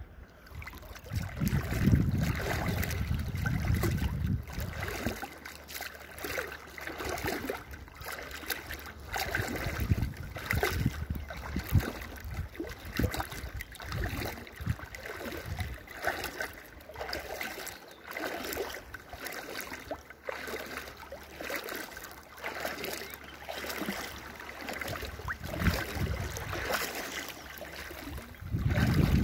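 Shallow water splashing and lapping in small, irregular splashes. Gusts of wind buffet the microphone about a second in and again near the end.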